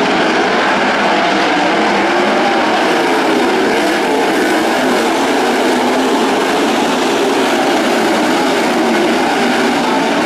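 Several sprint cars' V8 engines running hard together: a loud, continuous drone with many overlapping pitches weaving up and down.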